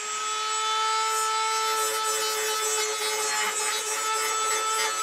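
Electric grinder running at a steady speed, a constant whine over a grinding rasp, as it grinds paint off the steel travel levers down to bare metal.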